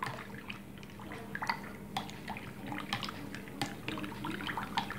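Hand whisk stirring beaten eggs and milk in a bowl, with irregular light clicks against the bowl and small liquid splashes as the two blend.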